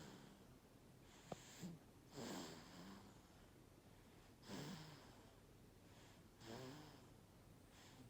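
A sleeping baby snoring softly: three snoring breaths about two seconds apart, each with a low pitched rasp. There is a small click a little over a second in.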